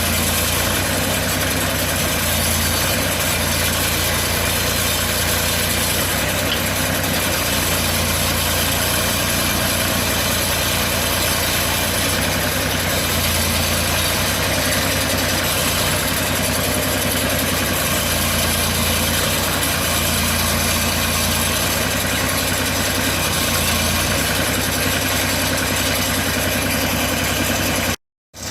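Engine of a portable bandsaw sawmill running steadily, with the sound dropping out for a moment near the end.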